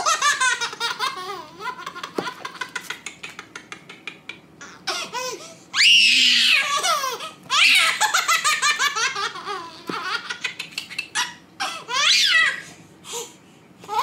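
Baby laughing hard in repeated bursts of giggles and belly laughs, with a long high-pitched squeal of laughter about six seconds in.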